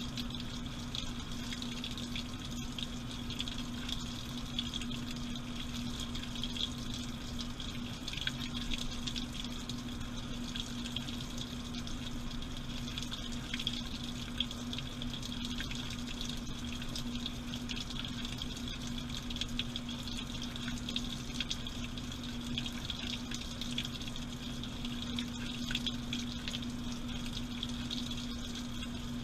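Water running and splashing inside a washing machine drum, with a steady hum from the machine and many small ticks and drips.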